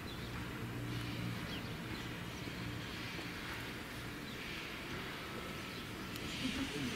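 Caledonian Railway '439' class 0-4-4 steam tank locomotive moving slowly, with a hiss of steam from its cylinder drain cocks that grows over the last couple of seconds. Birds chirp in the background.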